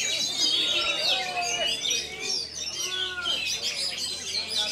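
Oriental magpie-robins singing over one another: a dense, continuous stream of quick, varied chirps and whistles, with slower, lower slurred whistles mixed in.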